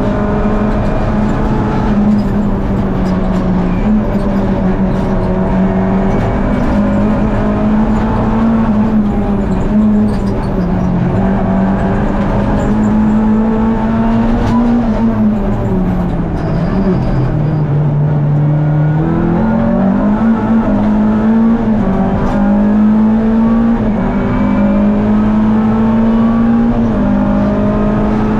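Renault Clio Sport rally car's four-cylinder engine running hard at high revs, heard from inside the cabin. Its pitch holds fairly level with brief dips, sinks for a few seconds about two-thirds through, then climbs again.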